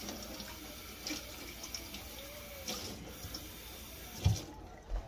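Kitchen tap running into a sink as a cored green pepper is rinsed under it, an even hiss of water. A dull knock about four seconds in, and the running water stops soon after.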